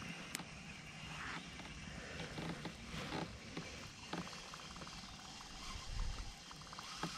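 Baitcasting reel being cranked on a steady retrieve: faint handling and scattered small clicks, with a run of rapid, evenly spaced ticks from the reel about halfway through.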